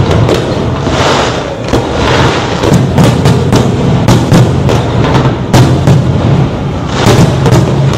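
Fireworks going off, sharp bangs several times a second, over loud music with a heavy drum beat.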